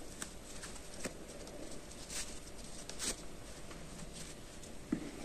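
Faint rustling and a few soft, short taps as hands pull knitted-yarn shorts onto a crocheted amigurumi toy.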